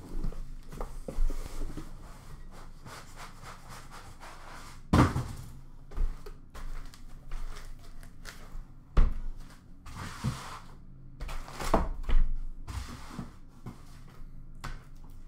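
Cardboard shipping box being opened and unpacked: flaps and foam packing rubbing and rustling, with several dull thumps as the boxes are handled and set down on a counter.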